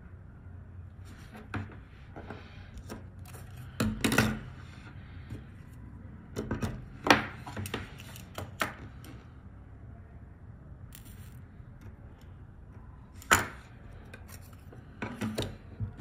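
Irregular sharp clicks and taps of small hand tools and parts being handled on a workbench during keyboard PCB assembly, with a few louder knocks about a quarter, halfway and four-fifths of the way through.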